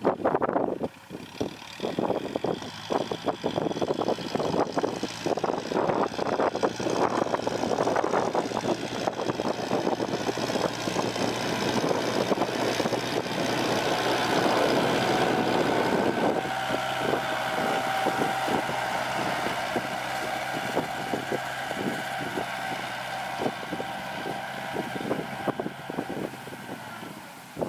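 Heavy diesel earthmoving machinery running, a steady low engine hum with irregular rattling over it; a steady higher whine joins about halfway through.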